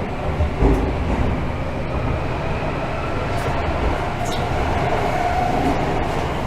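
Tozai Line subway train running, heard from inside the carriage: a steady rumble and hiss of the wheels on the rails, with a faint whine coming in during the second half.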